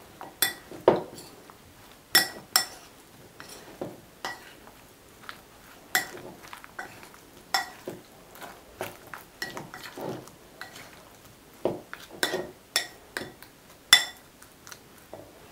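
Metal fork stirring sliced green tomatoes in batter in a glass bowl: irregular clinks of metal on glass, some ringing briefly.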